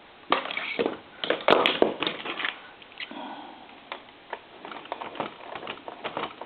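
A screw being driven back into a plastic lamp base by hand, with irregular clicks, knocks and scrapes of the screwdriver and parts being handled, busiest in the first couple of seconds.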